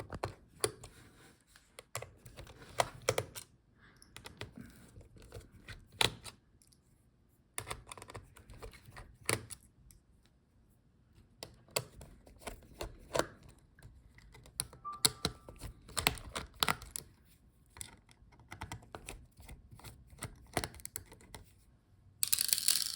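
Small screwdriver removing laptop motherboard screws: scattered sharp clicks and light taps of the tool and tiny screws, with short pauses. A brief hiss-like rustle near the end.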